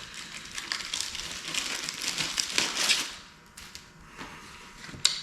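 Packaging crinkling and rustling as it is handled, for about three seconds, then a few light clicks and taps.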